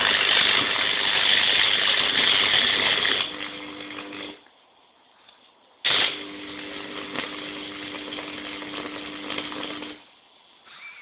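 High-voltage arc from stacked microwave oven transformers at about 7,500 volts burning into a pork pie: a loud crackling buzz over a steady transformer hum. It cuts off about four seconds in, then switches on again suddenly for about four more seconds, quieter the second time.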